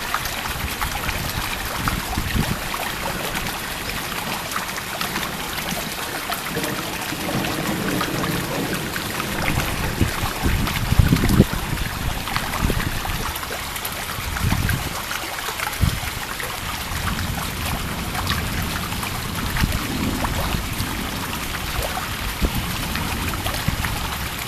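Steady rain during a thunderstorm, with several low rumbles of thunder coming and going, the strongest about ten to eleven seconds in.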